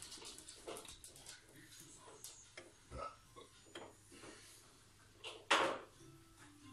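Light kitchen handling noises: scattered small knocks and clicks, with one louder, half-second scrape or rustle about five and a half seconds in.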